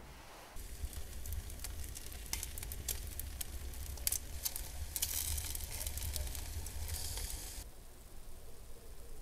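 Wood fire crackling in a wood-fired oven, with food sizzling on foil over a low rumble of the flames. It starts suddenly about half a second in, and the crackling cuts off near the end.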